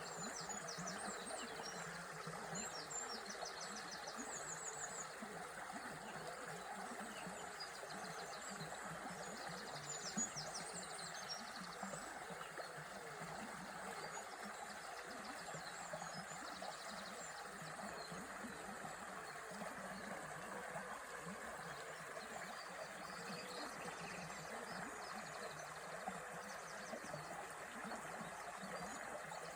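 River water running steadily, with small birds chirping and trilling over it, most busily in roughly the first twelve seconds.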